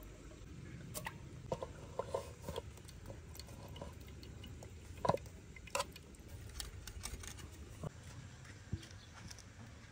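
Drained cooked rice tipped from a pan into a metal pot: a soft patter with scattered light clicks and a couple of sharper knocks.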